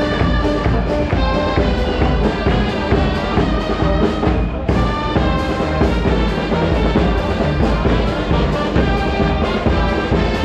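Band music with brass instruments playing a tune over a steady drum beat, with a short break about halfway through.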